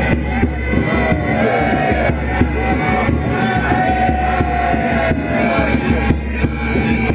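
Music with a singing voice carrying a wavering melody over a steady low bass and beat.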